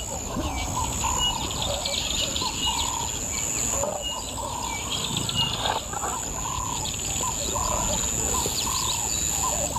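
Bush ambience of birds calling over a steady high insect drone. A short high note repeats every second and a half or so, and a lower rising-and-falling call repeats a little faster.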